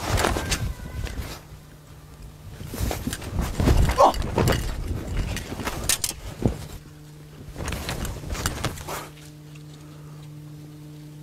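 Shaolin double hook swords swung through the air in bursts of quick whooshing passes, with cloth snapping and the odd thud, over a low steady hum. The swings come in clusters near the start, in the middle and again a little past two-thirds through, then die down near the end.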